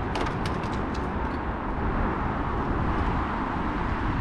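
Street ambience with a steady rumble of road traffic. A quick run of sharp light clicks comes in the first second or so.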